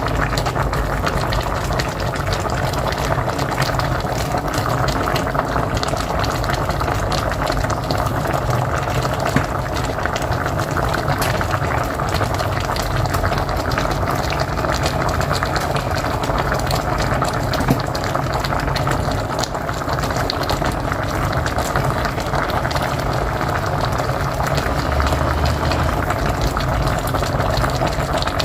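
A pot of mocotó (cow's feet stew) bubbling at a steady, rolling boil, a constant bubbling and popping with fine crackles throughout.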